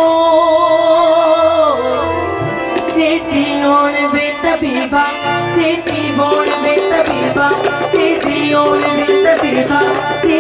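Live South Asian folk music played over a stage sound system: a held, wavering melody at first, then hand-drum strokes joining in about three seconds in and keeping a steady rhythm under the tune.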